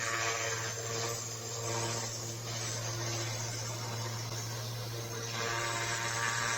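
Petrol pressure washer at work: the engine runs with a steady hum under the hiss of the high-pressure jet blasting the patio surface. The spray hiss swells and fades as the lance sweeps, and gets louder about five seconds in.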